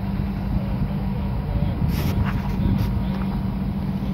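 EMD GP38-2 diesel-electric locomotive's 16-cylinder two-stroke engine running as the single unit moves back along the track: a steady low drone with a constant hum, plus a few short clicks about two seconds in.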